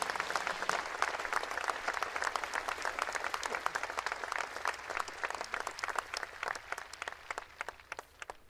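Crowd applauding, the clapping thinning out to a few scattered claps and dying away near the end.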